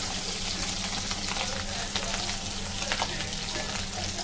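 Fish roe sizzling and crackling as it fries in hot oil in a wok, with a spatula in the pan at first. Sharp pops run through the hiss, the loudest about two and three seconds in, over a steady low hum.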